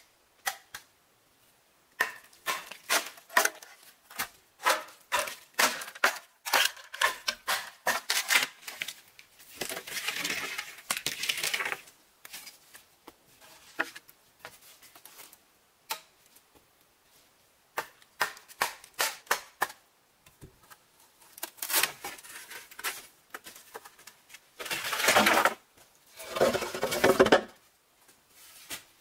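Bamboo poles being handled: a run of sharp knocks and clatters, then longer scraping and rustling sweeps, the loudest ones near the end.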